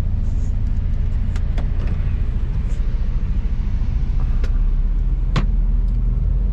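Tipper truck's diesel engine running, heard inside the cab: a steady deep rumble that grows heavier about two-thirds of the way in, with a few sharp clicks and knocks from the cab.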